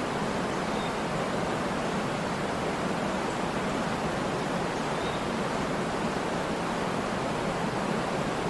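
Waterfall, water falling and rushing in a steady, unbroken wash of noise with no change in level.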